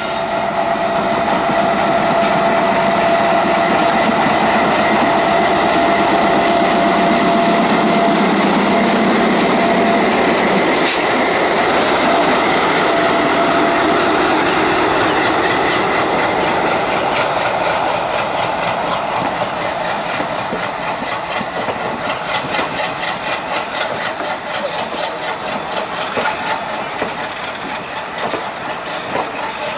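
WDP3A diesel locomotive's ALCO 251 engine pulling away and passing close, its rumble topped by a steady whine. Once it is by, the passenger coaches roll past with a fast, even clickety-clack of wheels over rail joints.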